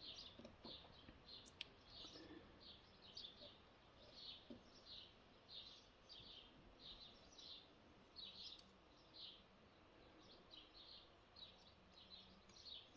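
Near silence: faint high chirps repeating about twice a second, with two faint clicks.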